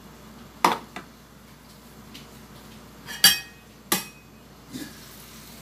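Stainless steel wok lid clanking against the wok as it is handled: about five sharp metallic clinks, the loudest about half a second in and about three seconds in, one of them ringing briefly.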